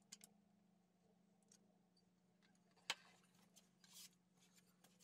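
Near silence with a faint steady hum, broken by one light click about three seconds in and a few fainter ticks after it: small handling sounds of a pipe cutter being lined up on aluminum tubing.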